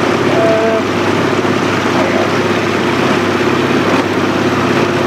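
Outboard motor of a coaching launch running steadily at an even pitch, a constant hum over a wash of noise.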